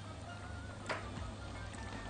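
A silicone-coated whisk stirring milk into a roux in a metal saucepan, with one sharp tap against the pot about a second in, over faint background music.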